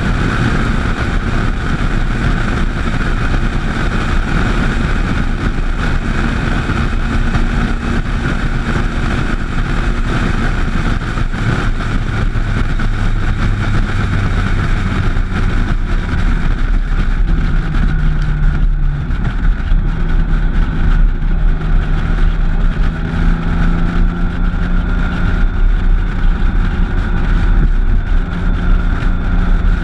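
Motorcycle engine running at road speed, heard from a camera mounted on the moving bike, with heavy wind rumble on the microphone. The engine note shifts in pitch a few times, once around a third of the way through and again about two-thirds through.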